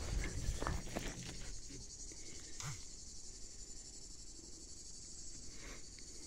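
Steady, high-pitched chorus of insects. Footsteps crunch on a gravel track during the first second or so, and there is one faint click a little before the middle.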